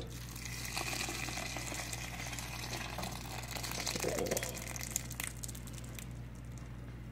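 Thick cheese sauce pouring from a saucepan onto drained macaroni in a stainless steel pot, a wet sloshing pour. Near the end a wooden spoon scrapes and taps the saucepan to clear out the last of the sauce.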